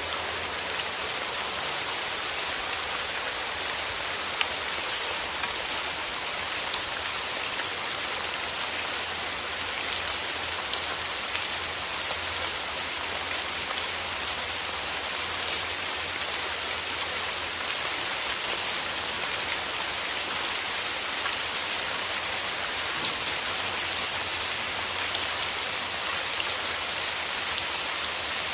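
Steady rain falling, a dense even hiss with scattered individual drop ticks, over a faint steady low rumble.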